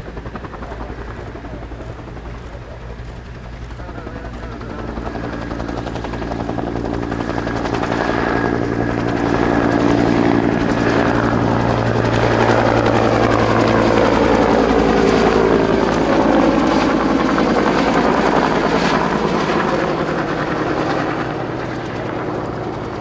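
AH-1 Cobra attack helicopter flying low past. Its rotor beat and turbine whine grow steadily louder over the first ten seconds or so, then the whine falls in pitch as the helicopter passes and moves away.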